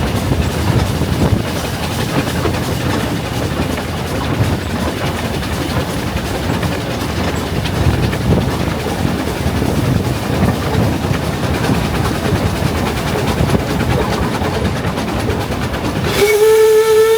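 Narrow-gauge steam train on the move, a steady rumble and rattle of running gear and carriages. About a second before the end, the locomotive's whistle starts up and holds one steady note.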